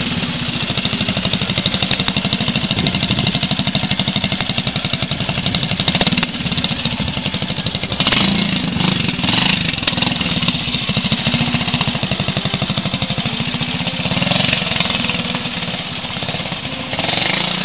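Vintage trial motorcycle engine running, its firing pulses rapid and even, revving up and down about halfway through.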